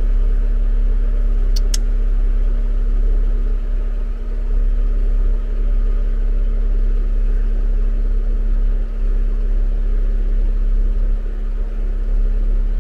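A Jeep's engine idling steadily, a constant low hum with a fixed pitch, with two brief sharp clicks about a second and a half in.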